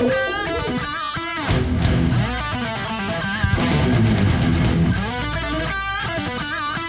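Background music led by electric guitar, with wavering, bending notes over a steady low bass.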